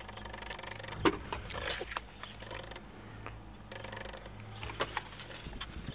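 Plastic toys being picked up and handled: light rustling with a few sharp clicks and knocks, the loudest about a second in, over a faint steady low hum.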